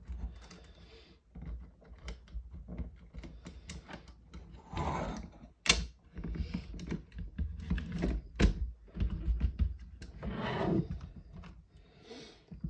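Irregular plastic clicks and knocks, with a couple of longer rubbing sounds, as a Hi-Capa airsoft pistol is forced into a 3D-printed carbine kit against its recoil spring.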